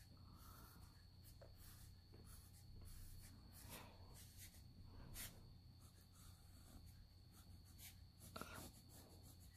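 Faint scratching of a pencil drawing lines on sketchbook paper, in a series of short strokes, over a low steady hum.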